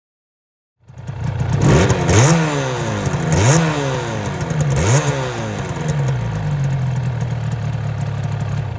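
A two-stroke motorcycle engine is blipped three times, about a second and a half apart, each rev rising sharply and falling back. It then settles to a steady idle.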